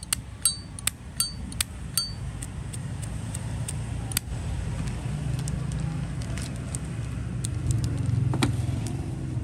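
Zippo lighter lid flipped open and snapped shut, crisp metallic clicks each with a short ringing ping, about five in the first two seconds, then sparser, fainter clicks. A steady low rumble runs underneath and grows louder in the second half.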